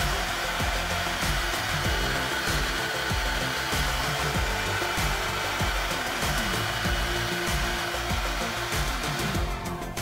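Feekaa FK-HD-2328A ionic hair dryer running steadily, blowing a strong stream of air, then switched off just before the end.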